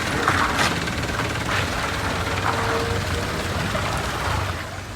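Motor vehicle engine running at low revs, a steady low drone with a few sharp knocks in the first couple of seconds.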